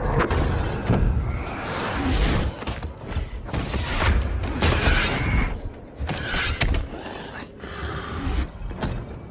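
Film fight sound effects: a rapid run of heavy blows, thuds and crashes over a low rumble.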